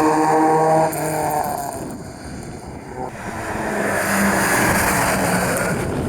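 Rally car engine at high revs, cutting off abruptly about a second in, then a car's engine and tyre noise building again from about three seconds in.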